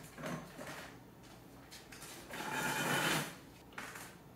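Household handling sounds as a step ladder is mounted beside a curtain: a few short knocks and scrapes, and a longer sliding scrape lasting about a second midway.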